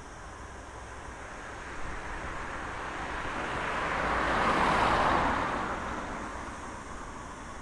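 A road vehicle driving past, its tyre and engine noise swelling to a peak about five seconds in and fading away again, over a steady low rumble of traffic.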